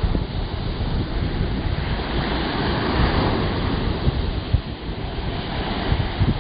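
Surf washing onto a sandy beach, a steady hiss of breaking water, with wind buffeting the microphone in uneven low rumbles.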